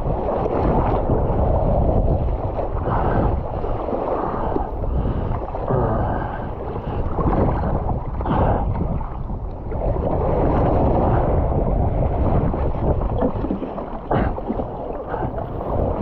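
Wind buffeting the microphone in gusts over choppy sea water sloshing and splashing close by, with a couple of sharper splashes.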